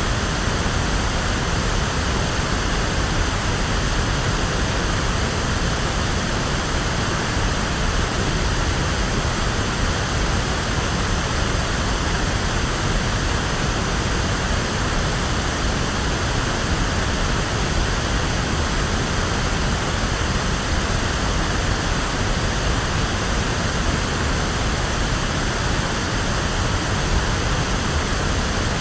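Electronically generated pink noise: a steady, even hiss with full bass, like a waterfall or ocean, unchanging throughout.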